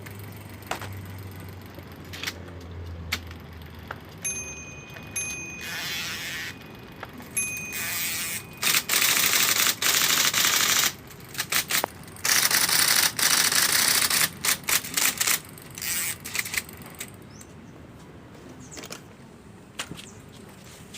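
IBM Selectric III electric typewriter typing in long rapid bursts of strikes, a test run after servicing. Scattered single clicks come before the bursts, and a short high whine sounds three times.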